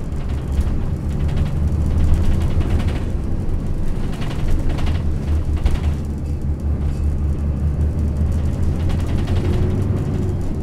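Interior of a Yutong ZK6128HG low-floor city bus under way, with its engine giving a steady low drone. Over it the body rattles and knocks constantly, shaking on uneven road.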